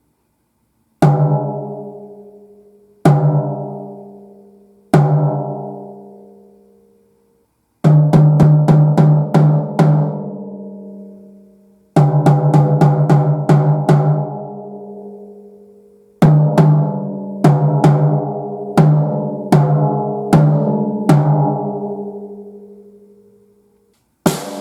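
Snare drum with a single-ply batter head being played. It is struck alone three times, each hit ringing out with a clear pitched tone, then comes a quick run of strokes, another run, and a rhythmic pattern of hits. One sharper, brighter hit comes near the end.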